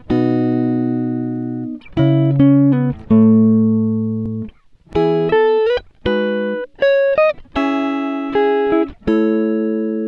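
Background music played on plucked strings: notes and chords struck one after another and left to fade, a few sliding up in pitch.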